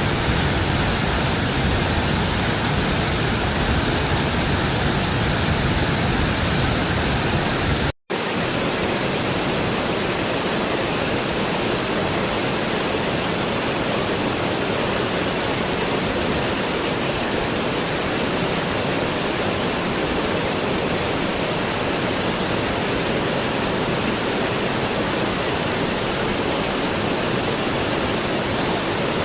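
Steady rushing of a waterfall, an even wash of falling water. About eight seconds in it breaks off for an instant, and after that the deep rumble is lighter.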